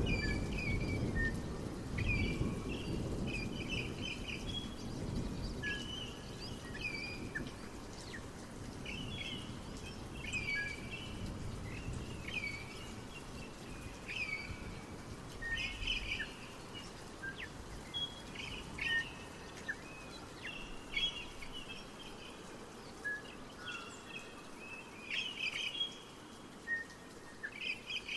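Small birds singing, with many short chirps and trills one after another. A low rumbling noise underneath fades out about halfway through.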